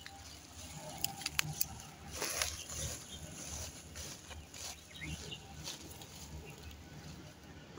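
Woven plastic sack rustling and crackling as hands open it and reach inside, with a few sharp crackles early on and a louder rustle about two and a half seconds in.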